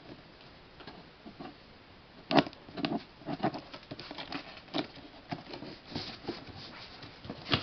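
A mail package being opened by hand: irregular rustling, crackling and clicking of the packaging, starting about two seconds in.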